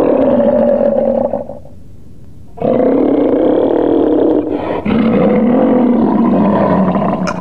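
Animated giant monster Hirudegarn roaring, a dubbed sound effect: a long roar that dies away about a second and a half in, then a second long, wavering roar starting just before three seconds in.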